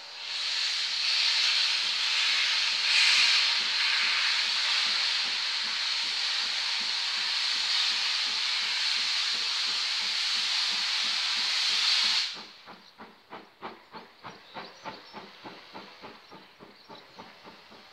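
Steam locomotive, a light prairie tank engine, pulling away. A loud hiss of escaping steam cuts off suddenly about twelve seconds in, leaving its exhaust beats chuffing steadily at about three a second.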